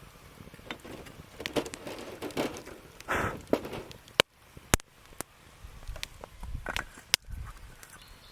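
Wood fire crackling, irregular small snaps and crackles with three sharp, loud pops of burning wood, about four seconds in, half a second later, and near the end.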